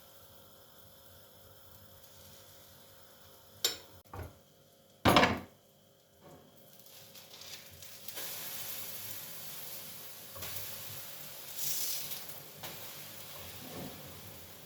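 Two light knocks and then a louder clatter of kitchenware, followed by food starting to sizzle in a hot pan, the sizzle building and then continuing.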